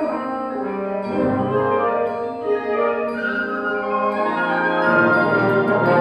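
Wind band playing held, sustained chords with the brass to the fore, swelling louder in the second half.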